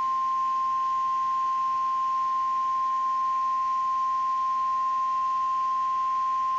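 NOAA Weather Radio warning alarm tone: a single steady, unbroken high tone at about 1050 Hz. It is the alert signal that comes before a broadcast National Weather Service severe thunderstorm warning.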